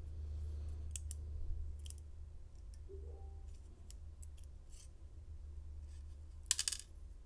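Scattered small metallic clicks and ticks of a tool working the tiny pins and springs out of a Master Lock 930 padlock's pin chambers, with a quick rattle of several clicks near the end.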